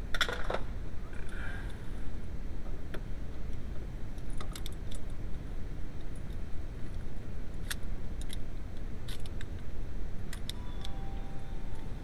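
Small metallic clicks and clinks in scattered groups, with a brief jingle of keys at the start, from handling a VW Passat B4 ignition lock cylinder housing and its keys, over a steady low background rumble.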